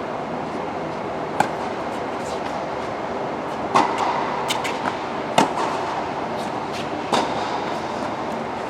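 Sharp ball-strike clicks during a rally, about five of them spaced one to two and a half seconds apart, over a steady background hiss.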